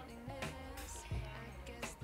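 Quiet background music, with two faint clicks.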